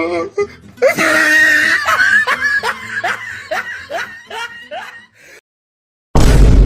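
Laughing sound effect: a quick run of short 'ha' syllables, each falling in pitch, that stops about five seconds in. After a brief silence, a sudden loud boom-like hit starts near the end.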